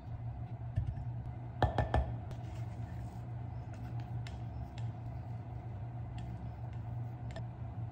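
Silicone spatula scraping thick mashed sweet potato off an immersion blender's blade and working it around a glass bowl, with scattered light taps and clinks against the glass and a couple of louder knocks about two seconds in. A steady low hum runs underneath.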